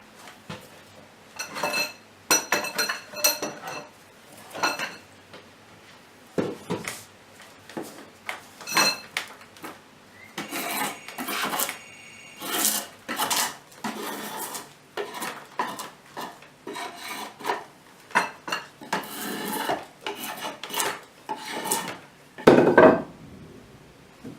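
A hand tool rasping and scraping on wood in short, irregular strokes, with a louder stroke near the end.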